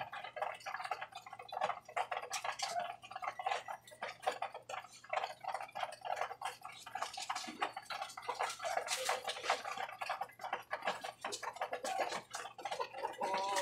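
Flock of pigeons pecking feed off a wire-mesh cage floor: a rapid, irregular clatter of beak taps.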